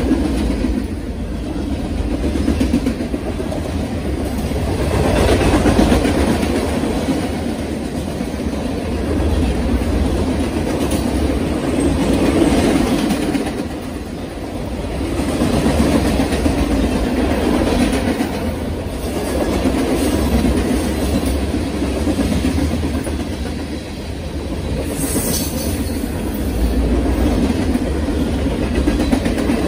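Freight cars (covered hoppers, a centerbeam flatcar and boxcars) rolling past on steel rails, the wheels clicking over rail joints under a steady rumble that swells and eases as each car goes by.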